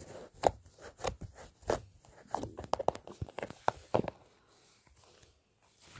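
A hand squeezing and poking sticky white homemade slime in a plastic tub: a run of small sharp clicks and pops. It goes nearly quiet about four and a half seconds in, then starts again just before the end.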